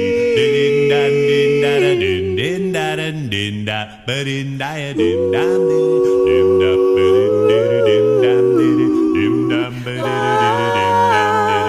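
Doo-wop vocal group singing held, wordless harmony chords over a low bass voice, with a brief break about four seconds in.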